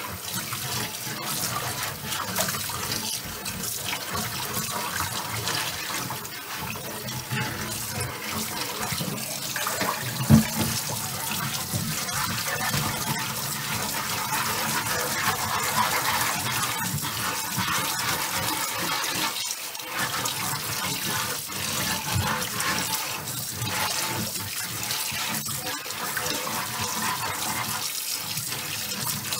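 Hot tap water running into a water-filled cast iron oval roaster in a stainless steel sink, splashing and sloshing as a chain mail scrubber is worked over the pan to loosen baked-on barbecue sauce. One sharp knock about ten seconds in.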